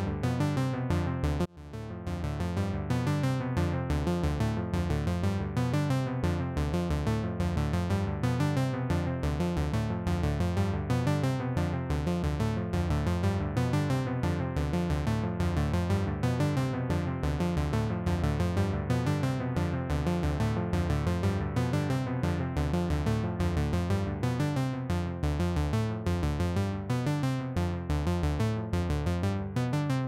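KORG Monologue analog monophonic synthesizer playing a fast, even, repeating sequence of low notes through a Donner Yellow Fall delay pedal, the echoes blurring into the notes. The sound drops out briefly about a second and a half in, then carries on.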